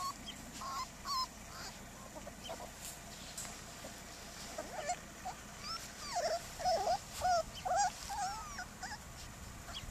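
Border collie puppies whining and yelping in many short, rising and falling cries, several at once and most often in the second half.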